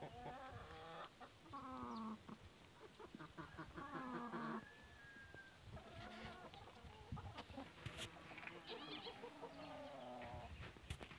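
Domestic hens clucking, several birds calling over one another in repeated runs of wavering calls.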